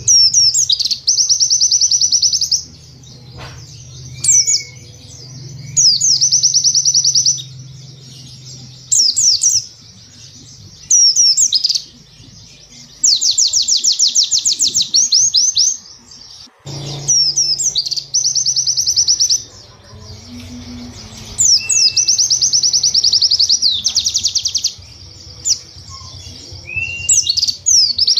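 White-eye (pleci) singing in repeated fast bursts of high "cap cap cap" and "wit wit wit" notes. Each burst lasts a second or two, with short pauses between.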